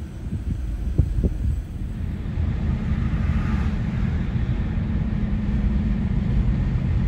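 Car driving along, heard from inside: a steady low rumble of engine and road noise that grows a little louder after about two seconds, with one short knock about a second in.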